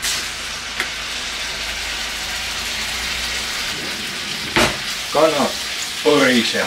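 Marinated chicken breast fillets sizzling in hot oil in a frying pan, the sizzle starting suddenly as they go in and then running steadily. About four and a half seconds in a wooden spatula knocks in the pan as the pieces are stirred.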